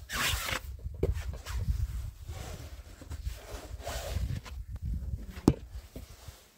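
Footsteps and rustling on rocky ground under a low rumble of camera handling noise, with a sharp click about five and a half seconds in.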